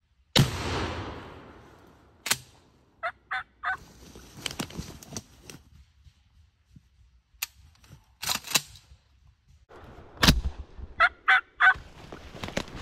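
A shotgun shot cracks and echoes away over about two seconds. Clicks follow, then three short wild turkey calls. About ten seconds in there is a second loud bang, followed by three more short turkey calls.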